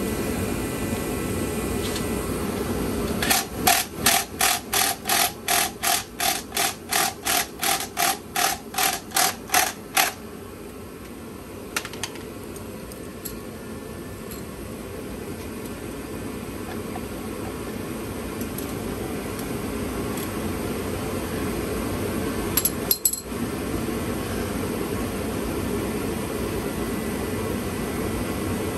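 Hammering: a run of about twenty evenly spaced strikes, roughly three a second, lasting about seven seconds, over a steady low hum. A few lighter single knocks follow later.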